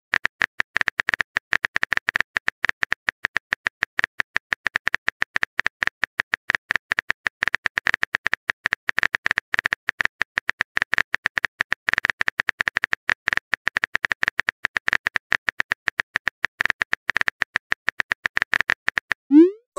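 Rapid keyboard-typing clicks, a typing sound effect running while the next chat message is composed, ending in a short rising swoop near the end.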